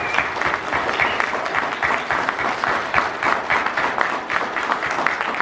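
A small crowd applauding and clapping steadily, thinning out near the end.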